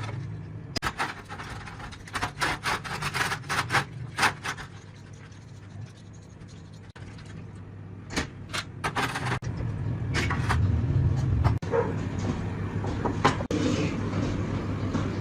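Hand-work noises from a restoration job: runs of quick scraping and clicking strokes over a steady low hum.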